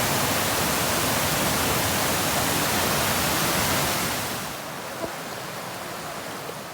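Waterfall rushing with a steady hiss. About four and a half seconds in it drops to a softer, duller rush, and there is a small click soon after.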